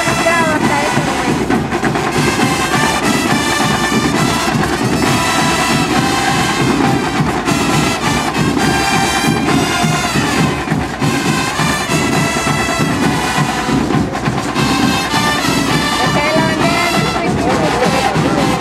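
A school marching band playing a tune, its brass section, sousaphones among it, sounding loud and steady.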